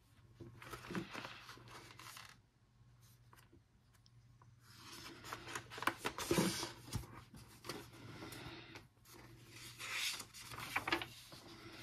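Paperback coloring book being opened and its pages turned by hand: paper rustling and scraping in three bouts, with a steady low hum underneath.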